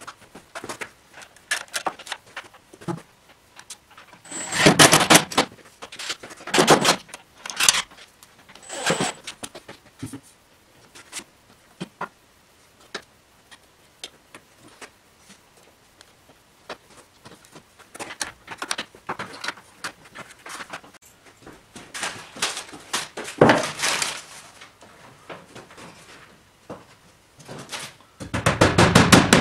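Irregular clicks, knocks and rattles of hands working on a plastic fluorescent light fixture and its cable, with several louder bursts of about a second each.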